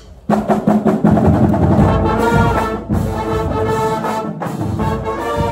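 Marching band of saxophones and brass playing together loudly. It starts abruptly just after the beginning, with a brief break about three seconds in.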